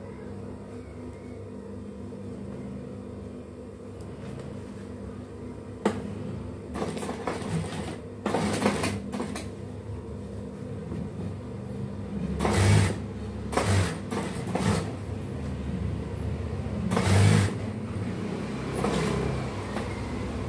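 Industrial lockstitch sewing machine: its motor hums steadily, and from about six seconds in the machine stitches in several short runs of a second or less, the loudest near the middle and again toward the end.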